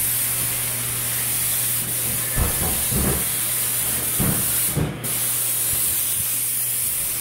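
Steady hiss over a low hum, with four dull thumps in the middle.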